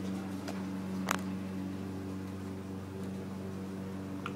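A steady low machine hum, with a few light clicks, the clearest about a second in, as a sharpened lawn mower blade is handled onto a cone blade balancer.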